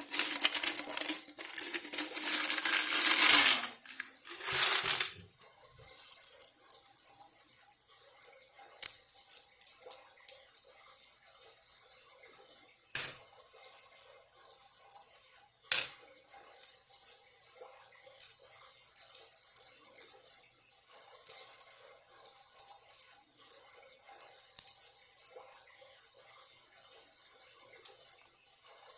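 Loose coins clinking as change is sorted by hand: a dense rush of jingling for the first few seconds, then scattered single clicks of coins being picked up and set down, two of them louder.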